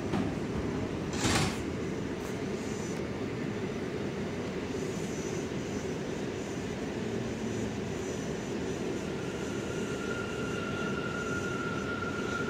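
Interior of a New York City subway car pulling out of a station: a brief knock-hiss about a second in, then the steady running noise of the car starting to move, with a faint steady whine joining near the end.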